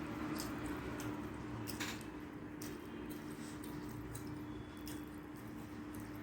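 Close-up eating sounds: chewing and wet mouth smacks, a few short clicks scattered irregularly through, over a faint steady hum.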